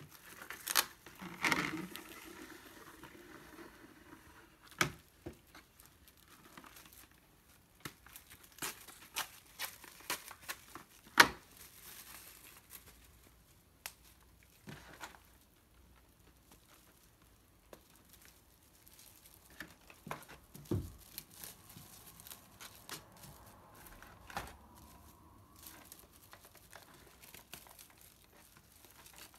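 Clear plastic freezer bag and plastic film crinkling and rustling in handling as a cardboard burger box is wrapped and bagged, with scattered sharp clicks and taps, the loudest about a third of the way in, and one dull thump later on.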